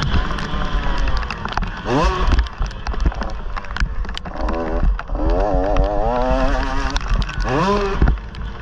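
Motorcycle engine revving as it is ridden, sweeping sharply up in pitch twice and rising and falling under changing throttle, over a heavy low rumble with frequent knocks.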